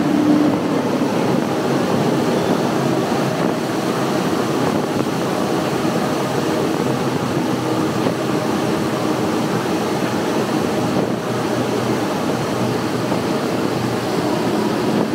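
Triple Mercury 600 hp V12 Verado outboards running at speed, a steady engine drone mixed into a dense rush of water and wind noise as the hull planes across the lake.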